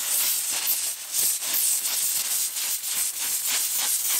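Handheld steam cleaner jetting hot steam from its nozzle into carpet pile: a steady hiss that sputters unevenly several times a second.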